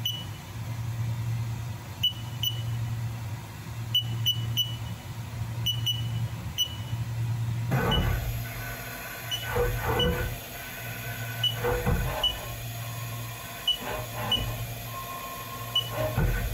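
Haas CNC mill control: short high beeps from keys being pressed while the bore-probing cycle is set up, over the machine's steady low hum. About eight seconds in, the axes start making short whirring moves as the Renishaw spindle probe runs the bore-probing cycle to find the bore's centre, with more beeps among them.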